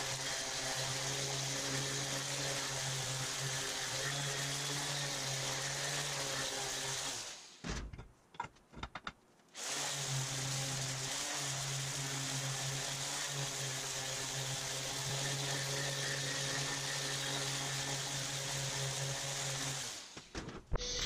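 Electric random orbital sander running steadily against the bare steel of a front axle, sanding it toward a 400-grit finish. About seven seconds in it stops for roughly two seconds with a few light knocks, then starts again and runs until just before the end.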